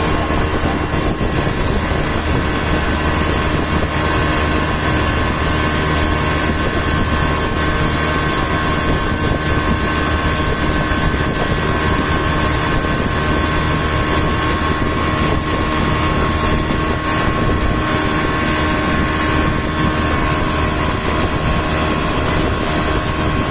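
Motorboat engine running at a steady speed, an even drone that holds the same pitch throughout.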